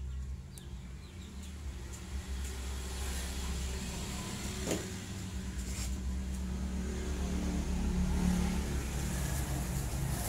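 A motor vehicle engine running close by, a steady low rumble that grows louder about eight seconds in. A few light metallic clicks come from a piston and its rings being handled.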